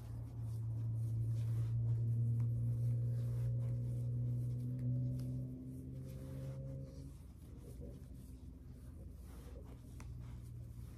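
Soft rustling and rubbing of hair as synthetic braiding hair is plaited by hand. A steady low hum sounds over it for about the first seven seconds, then fades out.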